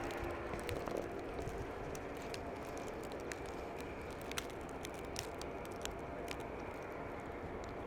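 Steady outdoor street noise of a snowy city street, a low even rush, with many small irregular crackling clicks scattered through it.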